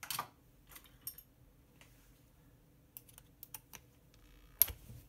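Scattered light plastic clicks and taps from hands handling the RC crawler's front axle and steering. A quick run of clicks comes about three seconds in, and one sharper, louder click comes near the end.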